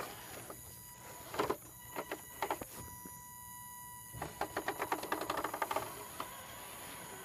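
Axial SCX10 RC rock crawler driving in short bursts over sandy dirt: clusters of rapid clicking and crunching from its drivetrain and lugged tyres, a few short bursts early on and a longer run of fast clicks about four seconds in.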